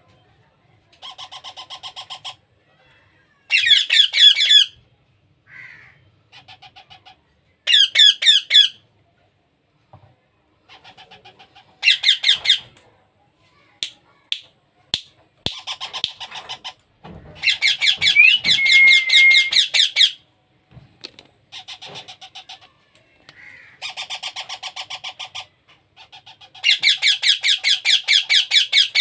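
Baby parrot's begging calls during hand-feeding: rapid, pulsing squawks in bursts of one to three seconds, repeated over and over, with a few sharp clicks about halfway through.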